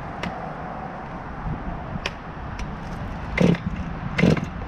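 Stihl chainsaw idling, with a few sharp clicks and two short louder bursts in the second half.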